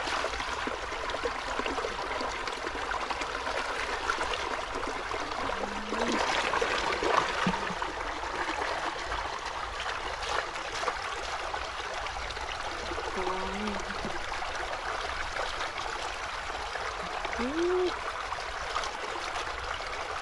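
Shallow water trickling steadily through a muddy field ditch, an even continuous flow.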